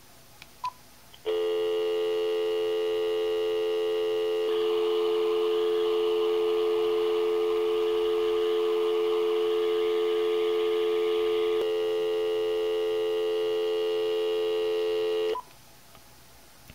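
A short beep from a cordless phone handset, then a steady dial tone from the handset running on a magicJack Plus VoIP adapter. For several seconds in the middle the dial tone carries a hiss, the noise fault caused by a failing 100 µF capacitor. Before and after that stretch it is clean, with the capacitor replaced, and it cuts off sharply as the call is ended near the end.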